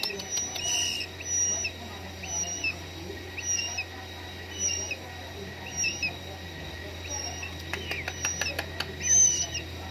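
Week-old murai nestlings begging while being hand-fed: short, high, even calls repeated about once a second. A quick run of sharp clicks comes near the end.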